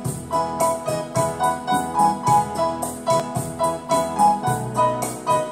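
Digital keyboard played in a piano voice, a melody over lower chords, with a steady beat of about three strokes a second.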